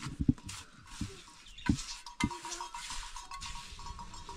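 Bricklaying trowel knocking and scraping on bricks and mortar, with several sharp knocks in the first couple of seconds and lighter clinks between.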